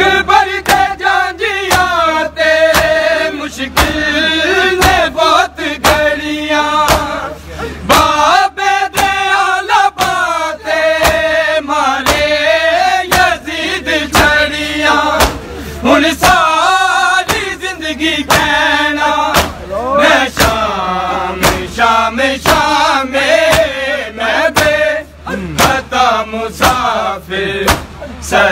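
Men's voices chanting a Punjabi noha refrain for Imam Sajjad, with bare hands slapping bare chests (matam) in a steady beat. The sharp slaps are the loudest sounds.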